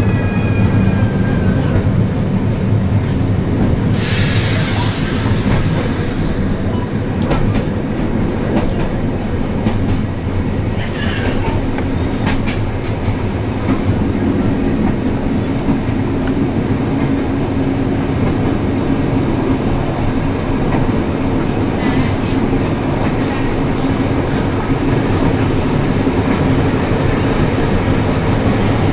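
Electric tram running along the track, heard from inside the driver's cab: a steady drone from the running gear, with wheels clicking over the rails. Brief high rushing squeals come about four seconds in and again around eleven seconds.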